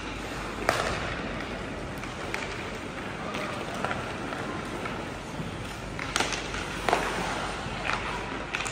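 Ice hockey play: a steady scrape of skate blades on the ice, broken by sharp clacks and knocks of sticks on the puck, loudest just under a second in and twice around six to seven seconds in, with faint voices behind.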